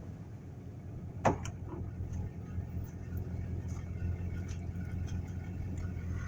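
Heavy diesel engine running steadily at low speed, with one sharp knock with a brief ring about a second in.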